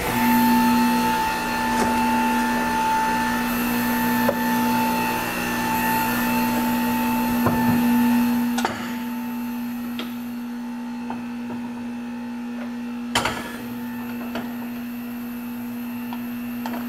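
Electric motor of a Hunter Revolution tire changer running with a steady hum. It starts up as the tire change begins, runs louder for about eight or nine seconds, then drops to a quieter steady hum, with a single click about thirteen seconds in.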